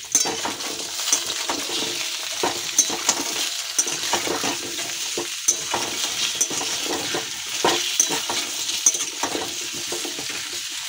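Cubed taro, potatoes and onions frying in mustard oil in a kadai, sizzling steadily. A metal spatula stirs them, scraping the pan and clinking against it many times.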